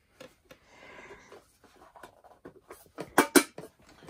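Handling noises from a small hinged metal tin: light clicks and rustling, then two sharp knocks in quick succession a little after three seconds as it is set down on a wooden table.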